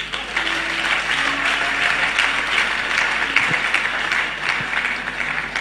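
Congregation applauding: a steady clapping that swells just after the start and eases off near the end, with a few faint held musical notes underneath.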